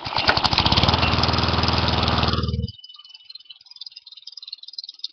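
Craftsman push mower's small gas engine starting up and running steadily for about two and a half seconds, then cutting out abruptly.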